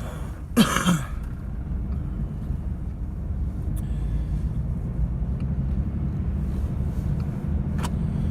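2007 Dodge Dakota pickup driving slowly, heard inside the cab as a steady low rumble. About half a second in comes a brief loud sound whose pitch falls, followed by a couple of faint clicks later on.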